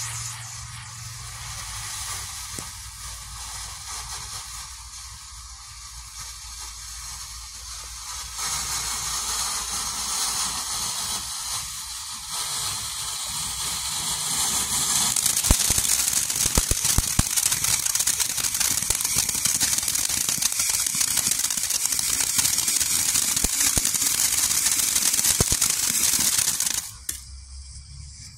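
Ground firework fountain (Showtime Fireworks 'Dizzy Donkey') hissing steadily as it sprays sparks, growing louder in steps. Sharp crackling pops join in about halfway through, then the hiss cuts off suddenly near the end as the fountain burns out.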